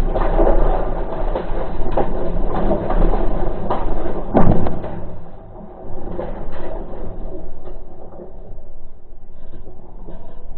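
Peugeot 106 rally car's 1.6-litre four-cylinder engine running hard at stage speed, heard from inside the cabin, with a loud thump about four seconds in. The engine then drops away briefly before picking up again.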